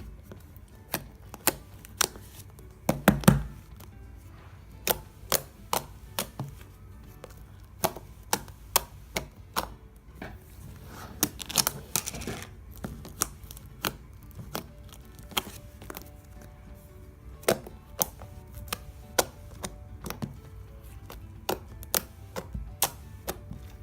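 Slime being handled by hand, giving irregular sharp pops and clicks with a louder cluster about three seconds in and a short crackling squish near the middle, over quiet background music.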